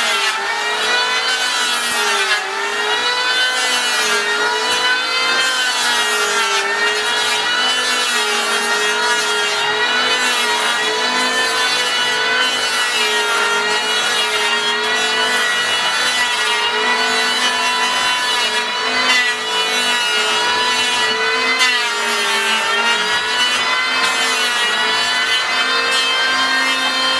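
Electric hand planer running steadily while planing the edge of a wooden door, a loud motor whine with the rasp of the cut. Its pitch sags briefly twice, about two seconds in and again past the middle, as the blade bites.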